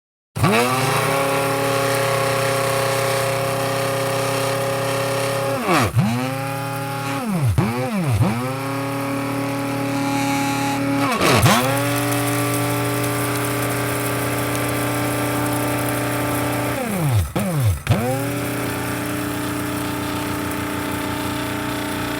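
Electric coffee grinder motor running, switched off and on again several times: its whine falls away as it winds down and climbs back as it spins up, with quick stops and restarts about 7 to 8 seconds in and again near 17 seconds.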